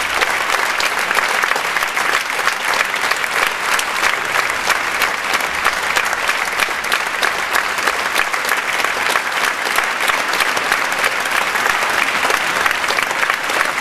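Large theatre audience applauding steadily, a dense, even wash of many hands clapping.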